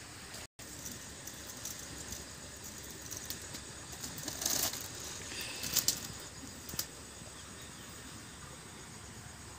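Plastic salt packet rustling and crinkling in short bursts as it is handled and salt is sprinkled over small raw fish in a steel plate, over a faint steady hiss.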